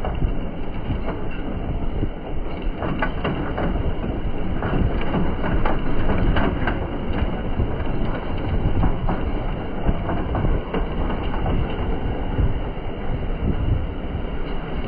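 Jeep driving over a rough track: a steady rumble, with frequent rattles and knocks from the bumpy ride.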